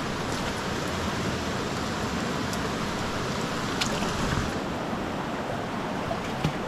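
Steady rush of flowing water from the river's rapids, with a few faint clicks.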